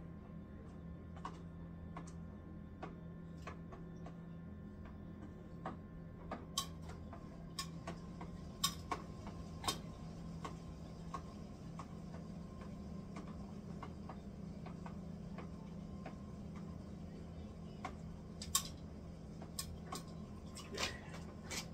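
A long-handled spoon stirring wort in a plastic fermenting bucket, clicking and tapping against the bucket's sides at irregular intervals, over a steady low hum.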